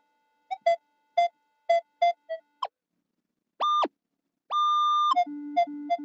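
Minelab Equinox 800 metal detector sounding its target tones as the coil sweeps: a string of short mid-pitched beeps about two a second, then after a short gap a higher tone twice, the second held for about half a second. A few short low-pitched beeps come near the end.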